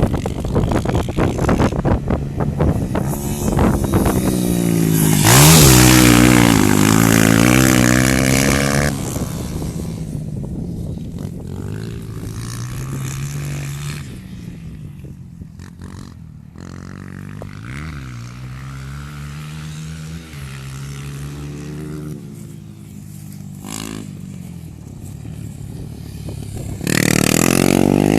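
Four-stroke single-cylinder dirt bike engines (Honda XR250 Tornado and CRF230F) riding hard, the engine note climbing and dropping again and again through throttle and gear changes. A loud rush of noise comes in about five seconds in and again near the end.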